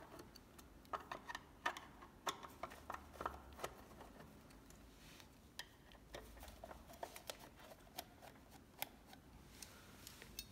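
Screwdriver backing the small screws out of a metal e-bike controller box: faint, irregular clicks, ticks and light metallic scrapes as the screws turn and the cover comes loose.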